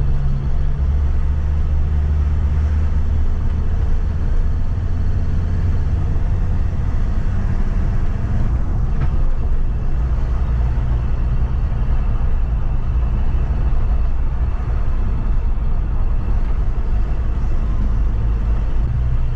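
Troller 4x4 driving along: a steady low engine drone mixed with road noise, heard from inside the vehicle.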